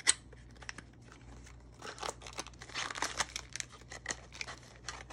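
Small cardboard knife box being opened by hand: a sharp snap right at the start as a flap comes free, then a run of crinkling and rustling of cardboard and packaging from about two seconds in.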